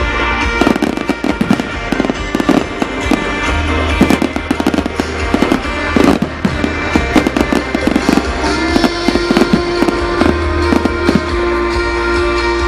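A fireworks display: rapid bangs and crackles in dense succession throughout, heard over music with a held note in the second half.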